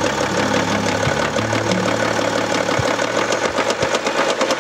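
BMW X5 E70 30d's M57 3.0-litre straight-six diesel idling with a rapid, loud metallic knocking. The mechanic suspects damaged crankshaft bearings letting the connecting rods hammer the crank.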